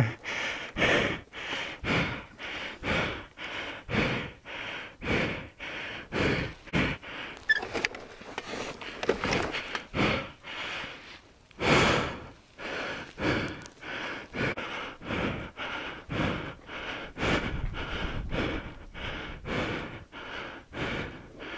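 A person breathing hard and fast, about two breaths a second, close to the microphone: out of breath after a motorcycle crash.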